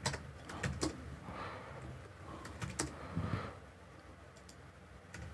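Computer keyboard keystrokes and mouse clicks while entering CAD commands: a scattering of single sharp clicks at uneven intervals.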